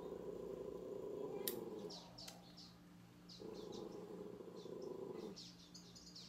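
Bonsai scissors snipping ficus twigs, two sharp clicks about a second and a half in and again shortly after, with small birds chirping over and over. A low hum swells and fades away twice underneath.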